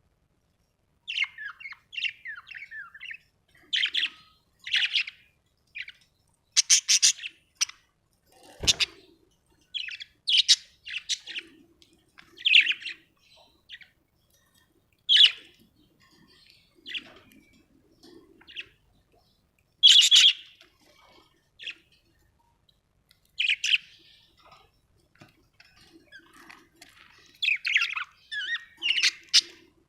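Pet budgerigars chirping and squawking in short scattered bursts of high-pitched calls with pauses between them. A single knock sounds about nine seconds in.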